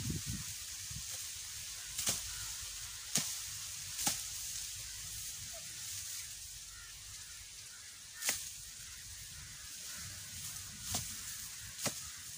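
Hand sickle chopping through tall, thick fodder-grass stalks: about seven sharp cuts at uneven intervals, over a steady low rumble and hiss.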